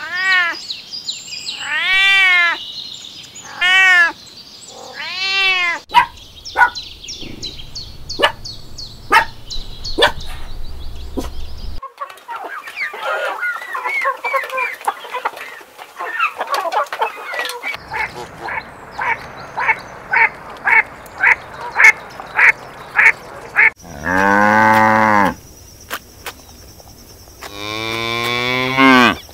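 A run of animal calls cut one after another: a cat meowing four times, then chickens clucking with quick repeated calls, then a cow mooing twice near the end.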